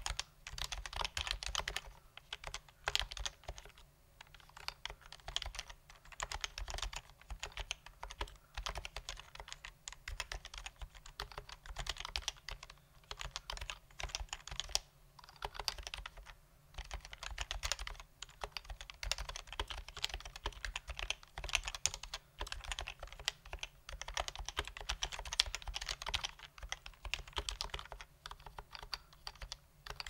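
Typing on an HHKB Pro 2 keyboard with stock, unlubricated Topre switches: a dense, fast run of keystrokes with short pauses every few seconds.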